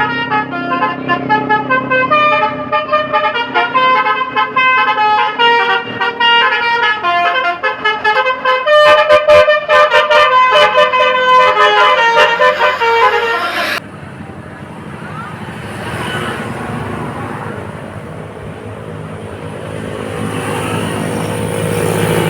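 Multi-tone 'telolet' basuri bus horn playing a fast tune of many short, loud toots, which cuts off suddenly about fourteen seconds in. A vehicle engine and road noise follow, growing louder near the end.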